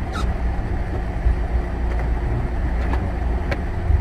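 Car driving: a steady low rumble of engine and road noise, with a few faint ticks.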